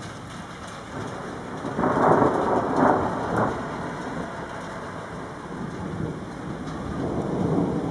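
Thunder rumbling in a thunderstorm, rolling in with a loud peak about two seconds in, several surges until about three and a half seconds, and a weaker swell near the end, over a steady background hiss.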